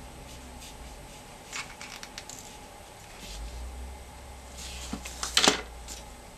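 Scattered light clicks and clacks of seashells and a plastic glue gun being handled and set down on the shell-covered canvas, with the sharpest clack about five and a half seconds in.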